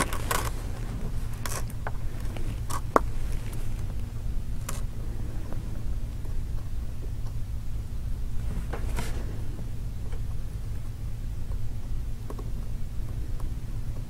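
A precision screwdriver and tiny screw ticking against an iPhone 5's metal connector shield bracket as a screw is seated: a few light clicks spread through the first ten seconds, over a steady low hum.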